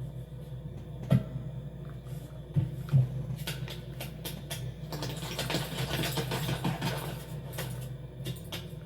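Film sound-effects track: a steady low machine-like hum with a few sharp clicks and knocks, and a rushing hiss that swells in the middle and fades out.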